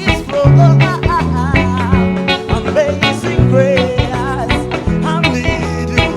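Live band playing a worship song, a singer's wavering voice over sustained bass notes and a steady beat of drum hits.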